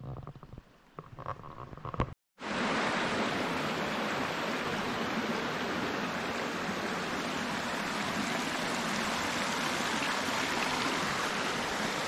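A rocky mountain stream running, a steady rush of water over granite slabs that starts abruptly about two seconds in after a short stretch of quieter sound.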